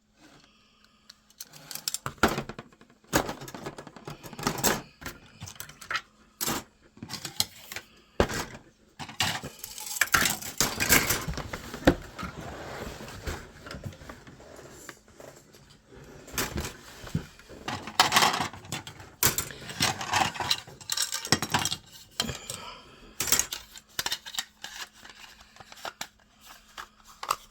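Plastic model-kit parts being handled: irregular clicks, light knocks and rattling of hard plastic pieces, with longer stretches of rustling and scraping.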